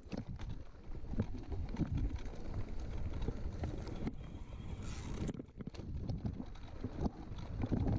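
Mountain bike riding down a rough dirt and grass singletrack: a steady rumble of tyres and wind on the microphone, with irregular knocks and rattles from the bike jolting over bumps.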